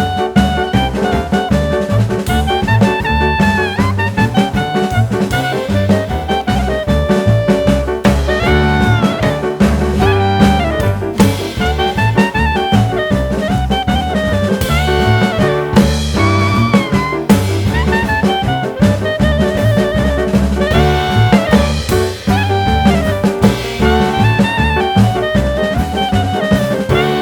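Background jazz music: a saxophone or brass lead with vibrato over a walking bass line and drum kit, in a swing style.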